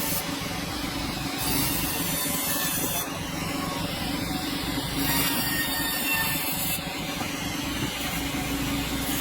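Sawmill machinery running steadily with a constant hum, as hardwood is sawn; a high hiss comes in and cuts out several times, each lasting one to two seconds.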